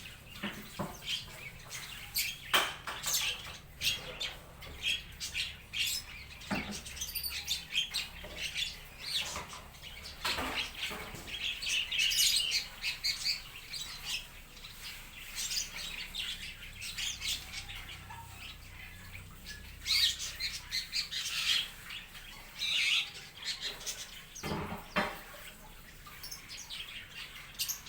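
Mixed flock of cage birds in a backyard aviary (starlings, parakeets, bulbuls and white-eyes) chirping and calling over one another without pause, with a few short louder sounds such as wing flutters or perch knocks.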